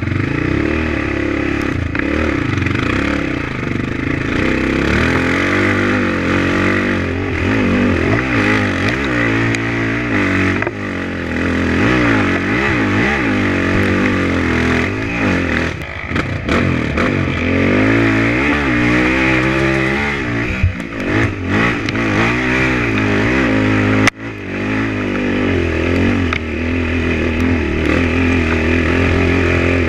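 Dirt bike engine ridden on a trail, revving up and down in quick swings as the throttle is worked over the bumps and climbs, with a sharp knock about two thirds of the way through.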